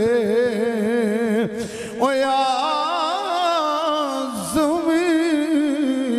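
A man's voice chanting a long, ornamented melodic line in a devotional recitation style, holding notes with a wide wavering vibrato. It breaks for a breath about a second and a half in, comes back on a higher note, and dips and breaks briefly again near the end.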